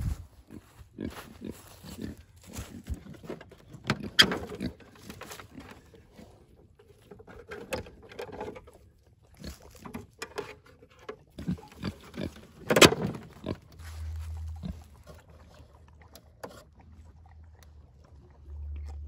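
Pigs grunting at intervals, mixed with clicks and knocks as an electric-fence charger's battery box is opened and handled. A low rumble comes in over the last few seconds.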